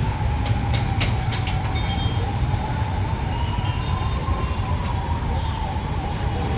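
A vehicle siren wailing slowly up and down over a steady low rumble of traffic, with a few sharp clicks about a second in.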